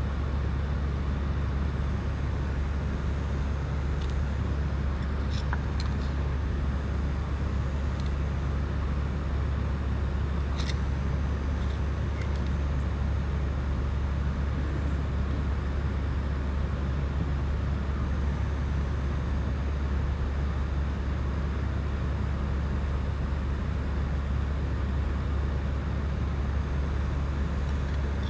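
Steady low rumble with a hiss over it, and a few faint small clicks scattered through the first half.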